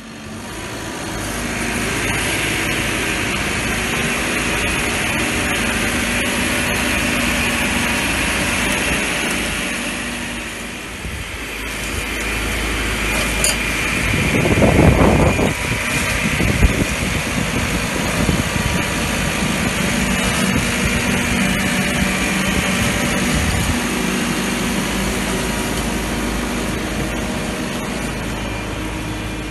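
Pellenc straddle carrier's engine running with a Ferrand double-row vine trimmer's cutter bars working, a steady mechanical running noise with a high whine over it. A louder low rumble lasts about a second halfway through.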